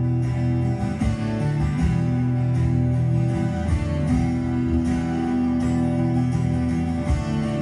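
Two acoustic guitars played together through the stage sound system, an instrumental intro of picked chords that ring on and change about every three seconds.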